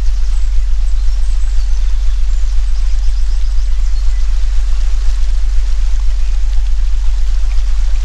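A steady deep electronic tone, the 'healing frequency', much the loudest sound, layered over a forest soundscape recording: an even hiss like rain with faint high bird chirps, mostly in the first half.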